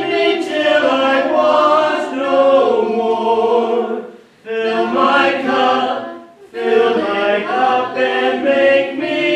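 Church congregation singing a hymn a cappella, several voices together in sustained phrases with two brief pauses for breath.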